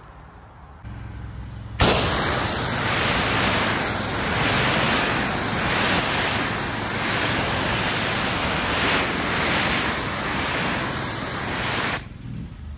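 Pressure washer spray blasting leaves and debris off a concrete driveway: a loud, steady hiss that starts abruptly about two seconds in and stops near the end, swelling and easing about once a second.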